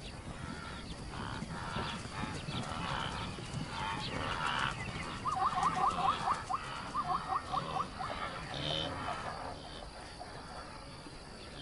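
Night-time outdoor ambience with an animal calling in two quick runs of short, repeated rising notes about five seconds in.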